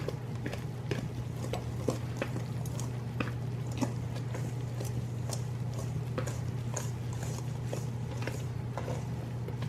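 Irregular light clicks and taps of hands and utensils at kitchen work, over a steady low hum.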